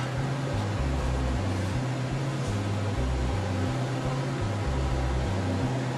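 Steady whirring hum of a running fan, with an uneven low rumble underneath.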